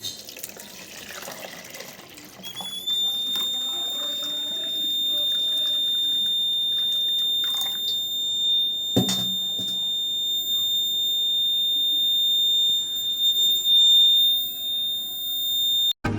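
Water running from a tap, and about two and a half seconds in a homemade water-tank overflow alarm's buzzer starts: one continuous high-pitched tone that rises slightly as it starts, then holds steady, warning that the water has reached the overflow level. The tone cuts off suddenly just before the end, and a single faint knock sounds about halfway through.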